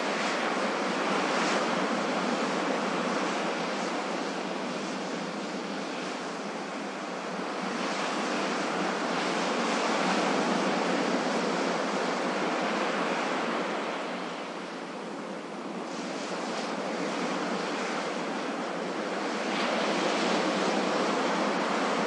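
Ocean surf on a beach: a steady wash of breaking waves that swells and ebbs slowly, with the louder surges coming several seconds apart.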